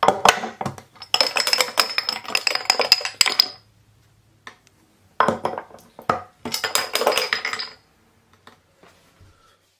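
A bottle cap pried off by a cast-metal bottle opener, then the loose metal cap clattering and bouncing down through wooden dowel pegs behind a plexiglass front, with a high metallic ring. This happens twice: one cap at the start, another about five seconds in.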